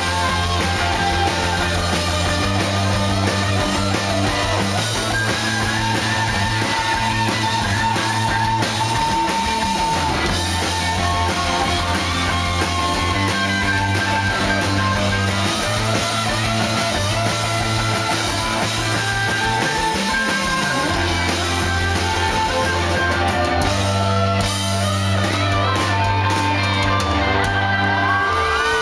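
Live rock band playing at full volume: distorted electric guitars and a drum kit over sustained low notes that change every few seconds.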